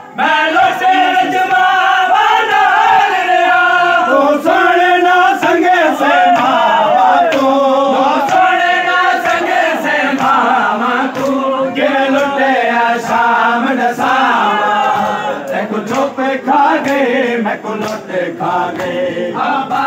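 A crowd of men chanting a Muharram mourning lament (noha) loudly together, the voices rising and falling, with sharp slaps scattered through it from the hand-on-chest beating of matam.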